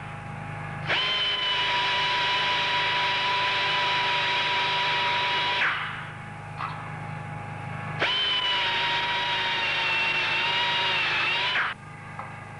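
Power drill boring holes into a broken metal casting along its crack: two long runs of steady high whine, each starting with a quick spin-up, about a second in and again about 8 seconds in.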